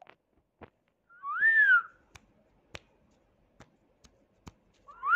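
Two short whistled notes, each gliding up and then down, about three and a half seconds apart, with faint scattered clicks in between.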